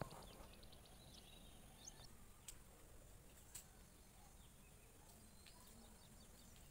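Near silence: faint background hiss with a few faint, short bird chirps now and then.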